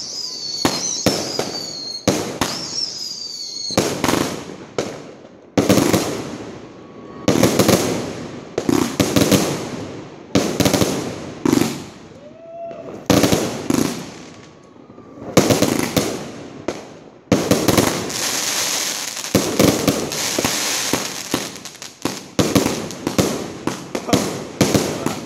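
A 250-shot fireworks cake firing shot after shot: a rapid series of sharp bangs, some with falling whistles near the start. About two-thirds of the way through comes a stretch of dense crackling.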